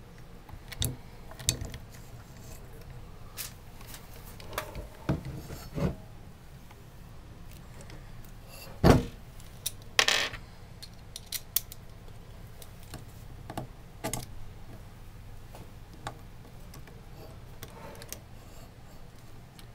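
Metal parts of a Remington 870 pump shotgun clicking and clacking as they are handled and fitted together, in scattered short knocks; the two loudest come about nine and ten seconds in.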